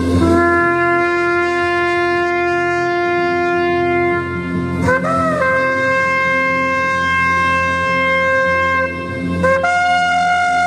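Shofar blown in three long held notes, each breaking and sliding up to a higher pitch: a low note for about four and a half seconds, a higher one for about four seconds, then a still higher note near the end.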